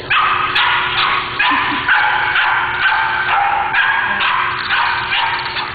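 A young puppy barking over and over in high-pitched yips, about two a second, in excited play.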